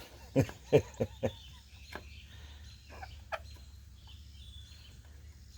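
Chicken clucking: four short clucks within the first second and a half, and one more about three seconds later.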